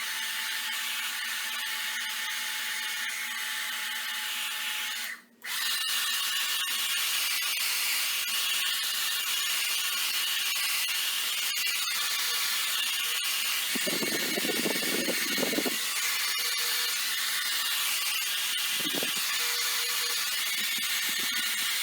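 Handheld hair dryer running on setting one, a steady blowing motor noise. It drops out briefly about five seconds in and comes back a little louder.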